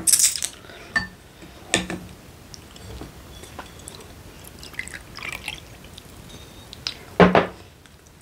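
Soju poured from a glass bottle into a small glass, with a few light clicks of chopsticks and dishes and a louder short knock near the end.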